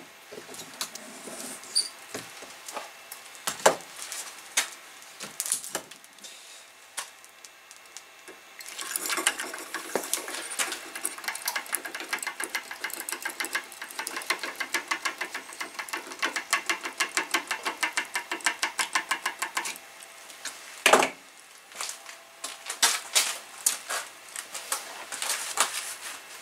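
Metal clinks and knocks as the hot Acme tap is taken from the tube furnace with tongs, then, about nine seconds in, the rapid crackling sizzle of the tap being quenched in oil inside a steel tube, lasting about eleven seconds. One loud knock follows, then a few clicks.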